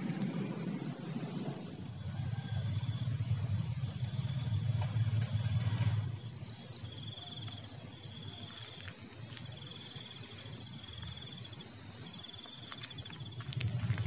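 Insects trilling: a steady high pulsing chorus, joined from about halfway by a shorter, slightly lower pulsing trill that repeats every second or two. A low rumble sits under it for the first few seconds, and near the end footsteps on a gritty path begin.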